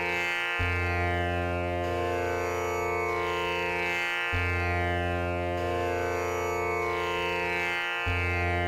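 Instrumental background music: a sustained drone of many held tones, its low note sounding afresh about every four seconds.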